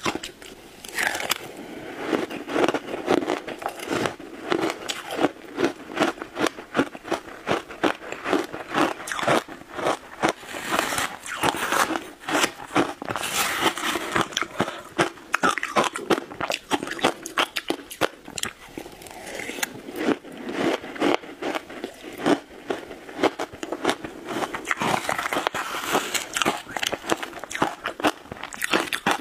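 Close-miked crunching and chewing of shaved ice, a steady run of sharp, irregular crunches as mouthfuls of ice are bitten and ground.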